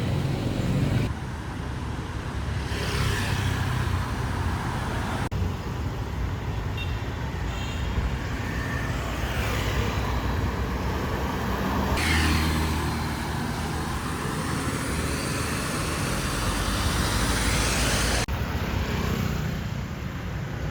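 Road traffic: vehicles passing by one after another, with the background changing abruptly a few times.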